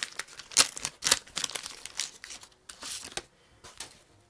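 Waxed-paper wrapper of a 1989 Donruss baseball card pack crinkling and tearing as it is opened, in a quick run of short rasps that die away in the last second or so.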